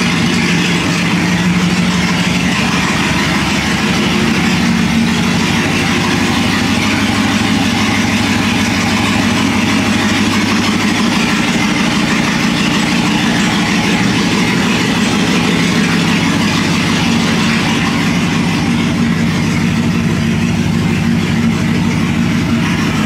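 A vehicle engine running steadily: a constant low drone with an even rushing noise over it.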